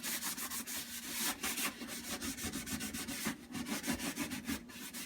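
A wet scrub sponge worked with cleaning paste scrubbing a caked-on stain off the bottom of a refrigerator, in quick back-and-forth scratchy strokes.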